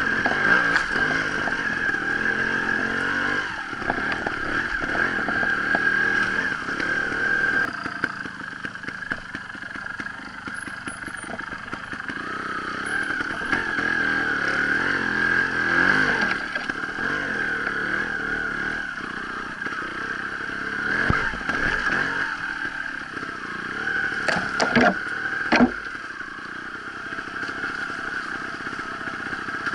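Sherco trials motorcycle engine blipping and revving up and down at low speed while picking its way over rough ground, with a few sharp knocks near the end.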